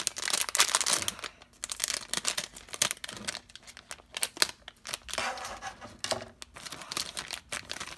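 Crinkly foil-plastic toy packaging being handled and cut open with scissors: irregular crackling and tearing with a few sharp snips.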